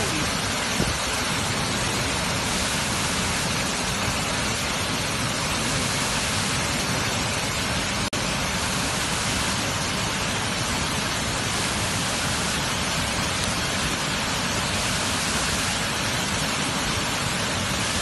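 Wide waterfall pouring over a rock ledge into the pool below: a steady, unbroken rush of falling water.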